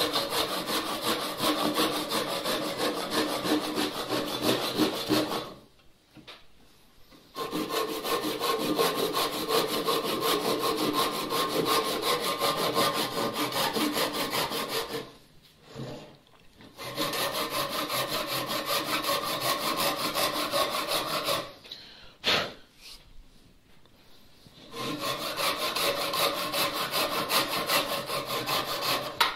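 Ryoba Japanese pull saw cross-cutting a pine bench leg to length, in a steady run of fast, even strokes. The sawing stops briefly three times, about 6, 15 and 22 seconds in, then resumes.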